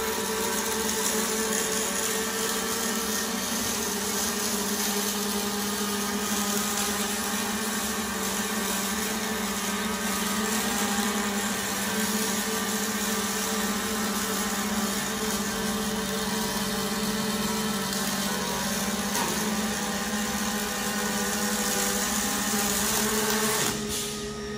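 MIG/MAG welding arc on an automatic CNC ring-seam welding machine, running steadily as the torch welds the outer seam of a pipe flange, with a steady hum underneath. The arc sound cuts off suddenly near the end.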